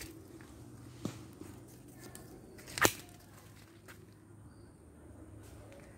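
Handling noise from a handheld phone being swung about: low rumbling rubs, with a small knock about a second in and one loud sharp knock just before the midpoint.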